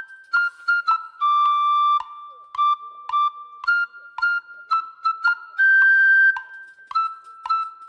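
Background music: a light flute-like melody of short repeated notes, with two longer held notes.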